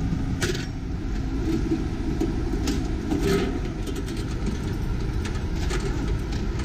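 A steady low rumble, with several short metallic clinks of linked machine-gun cartridges being lifted and laid down.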